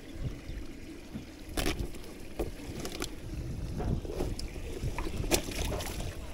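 Wind rumbling on the microphone, with a few sharp clicks and rustles from a water-filled fish weigh bag being handled.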